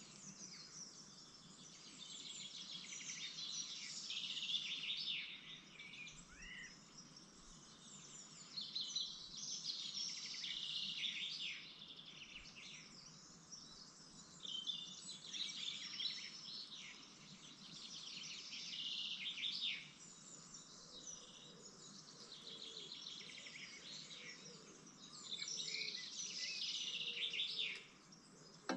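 Blue tit nestlings giving high-pitched begging chirps inside the nestbox, in bouts of a few seconds with short pauses between.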